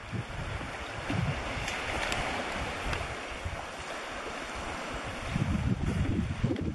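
Wind buffeting the microphone, with irregular low rumbling gusts over a steady rushing noise; the gusts grow stronger near the end.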